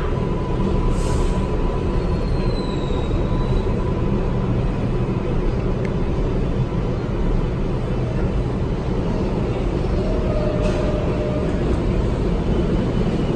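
Inside an R142A New York subway car, the steady rumble of wheels on rail and running gear as the train runs and slows into a station, with a faint whine in the first few seconds.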